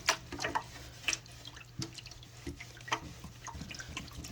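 Wet cleaning cloth scrubbing and wiping a grimy plastic fridge drawer, with irregular splashes, squishes and drips of water. A low steady hum runs underneath.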